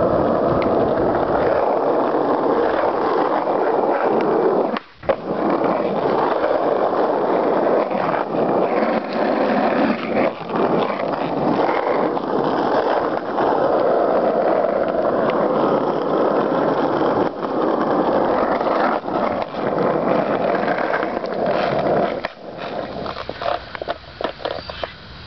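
Wheels rolling over asphalt pavement: a steady rumble that breaks off briefly about five seconds in and fades near the end.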